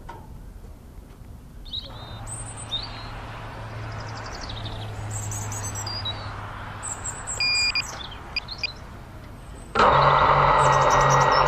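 Birds chirping and tweeting, short high calls over a low steady hum. Near the end a much louder sound cuts in suddenly.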